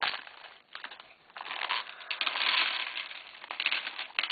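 Clear plastic packaging bag being pulled open and handled, crinkling in irregular bursts with small sharp clicks.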